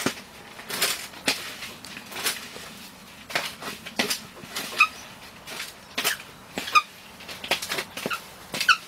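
Hands working coconut coir and damp coffee grounds together in a plastic bucket: irregular scrapes, rustles and light knocks against the bucket, with a few short high squeaks.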